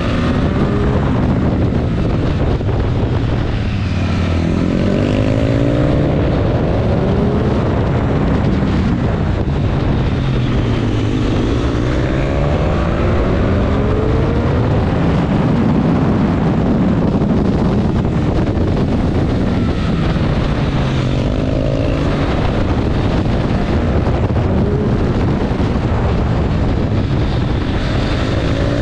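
Triumph Street Triple RS 765's three-cylinder engine heard from on board, revving between roughly 5,000 and 8,500 rpm: its pitch rises several times as it accelerates out of corners and falls as it slows. Wind and road noise run underneath.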